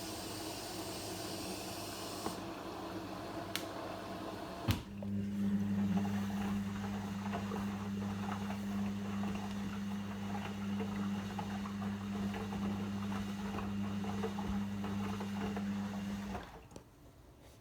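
Logik L712WM23 washing machine mid-cycle: a steady hiss for the first few seconds, a sharp click, then a steady low hum for about eleven seconds that cuts off suddenly.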